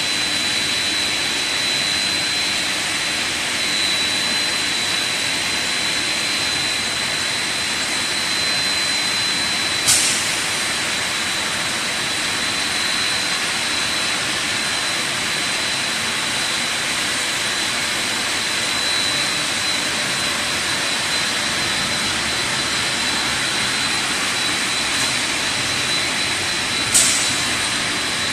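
Machinery of a twin-screw snack-food extrusion line running: a steady, loud mechanical rush with a thin high whine held throughout. There is a sharp click about ten seconds in and another near the end.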